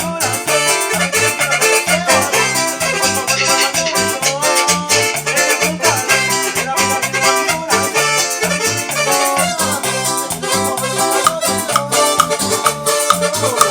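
Cumbia music playing: a steady, rhythmic bass line under a continuous melodic lead.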